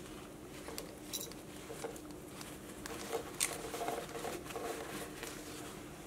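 Faint rustling and light clicks as a soft cloth cover is worked over a metal belt buckle by hand.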